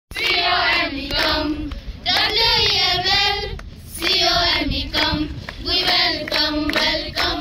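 A group of schoolgirls singing together in phrases, with hands clapping along.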